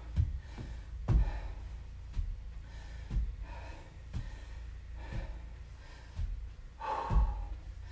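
Footfalls thudding on the floor about twice a second as a man jogs in place doing butt kicks, with his hard breathing between the steps.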